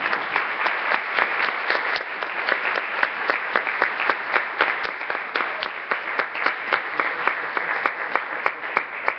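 Audience applauding, dense clapping with individual claps standing out, tailing off near the end.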